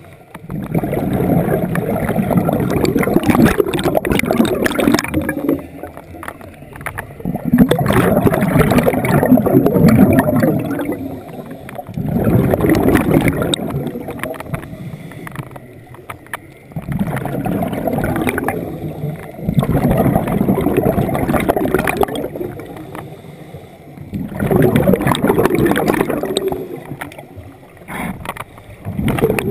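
Scuba diver's exhaled bubbles gurgling out of the regulator underwater, in long bursts about every four to five seconds with quieter gaps between breaths.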